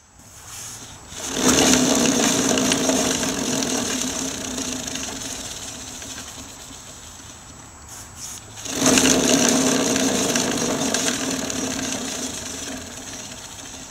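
Motorcycle rear wheel spinning freely on a stand, its non-O-ring drive chain whirring over the sprockets on ceramic wheel bearings. It is spun up twice, and each time the whirring rises over about a second and then fades slowly as the wheel coasts down, showing how little friction slows it.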